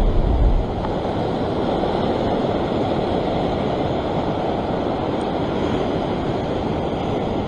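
Ocean surf surging across a rock shelf: a steady rush of breaking white water, with a brief low rumble near the start.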